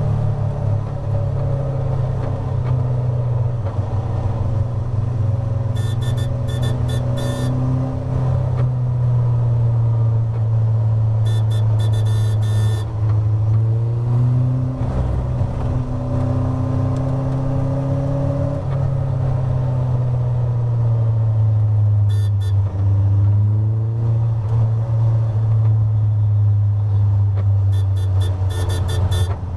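Caterham Seven's four-cylinder engine heard from inside the open cockpit under race load, its note rising and dropping with gear changes and braking. A few short bursts of rapid rattling clicks break in now and then.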